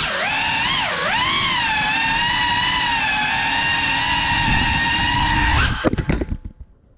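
High, many-toned whine of a Cinelog35 FPV cinewhoop's brushless motors and ducted props. The pitch swoops down and up with the throttle, then holds steady. About six seconds in it stutters through a few quick drops and cuts off.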